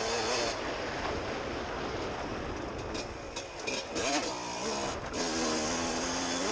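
Suzuki RM125 two-stroke motocross engine being ridden under throttle, its pitch dipping and climbing again about four seconds in and then holding steady, under constant wind rush on the helmet-mounted microphone.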